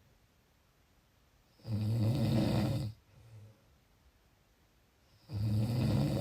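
A person snoring: two loud, rattling snores about a second long each, three and a half seconds apart, with a faint breath after the first.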